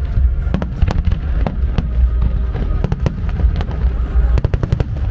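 Aerial fireworks shells bursting in rapid succession: many sharp bangs, several a second, over a continuous low rumble, with a quick cluster of bangs near the end.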